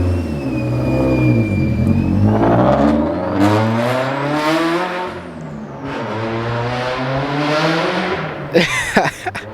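A drift car's engine revving, its pitch rising and falling several times, with a thin high whine in the first two seconds. A few sharp knocks come near the end.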